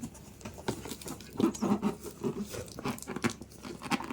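Cardboard cartons rubbing, scraping and knocking as an inner box is worked out of the outer shipping box. There are a few short squeaky scrapes around the middle.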